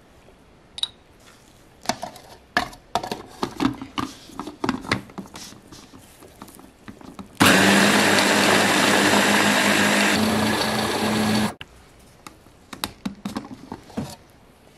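Electric mini food chopper running for about four seconds, its motor spinning the blade through the hazelnut-cocoa paste with the newly added coconut oil, starting and stopping abruptly. Before and after it, scattered clicks and knocks of the spoon, the plastic bowl and the lid.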